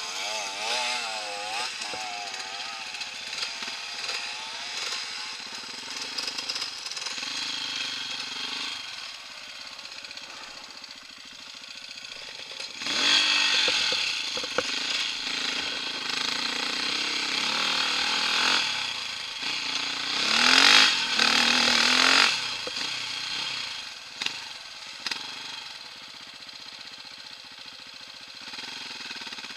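Enduro dirt bike engine heard from the bike, revving up and down over rough trail. There are two loud surges of throttle, one about halfway in and another about two-thirds in, with a wavering rise and fall in pitch at the start.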